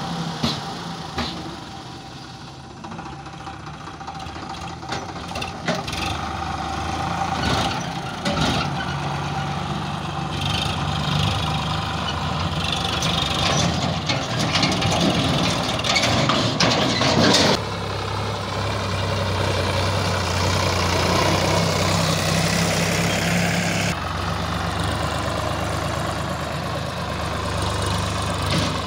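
Sonalika tractors' diesel engines running, idling and pulling tipping trolleys of mud. The engine note changes abruptly a little over halfway through, with a few knocks in the first third.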